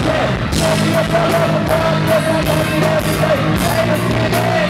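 Live hip-hop played loud through a concert PA: a backing track with a steady beat, heavy bass and a held wavering synth line, with a rapper's voice shouting over it through the microphone.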